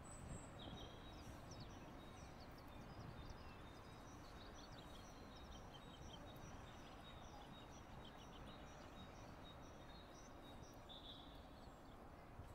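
Faint open-air ambience: small birds chirping in many short, high notes over a steady low rumble of wind.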